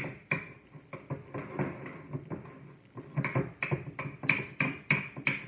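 Metal utensil stirring and mashing butter in a ceramic bowl, clinking against the bowl's side. The clicks come sparsely at first, then about three a second in the last two seconds.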